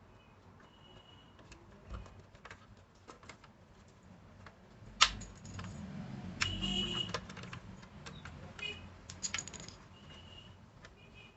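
Scattered small clicks and clinks of hard parts or tools being handled, with one sharp knock about five seconds in and a few brief high squeaks.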